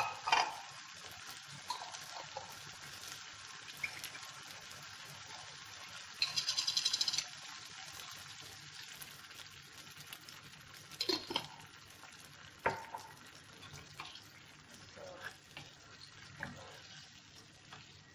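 Tomato stew sizzling in a frying pan, with a wooden spoon knocking and scraping against the pan now and then as it is stirred. A short rapid rattle about six seconds in.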